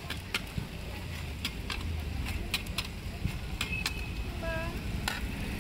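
Metal spatula clicking and scraping on a flat iron griddle as fried chive cakes are lifted off, with sharp irregular clicks over a steady street background hum. A brief high chirp comes about four and a half seconds in.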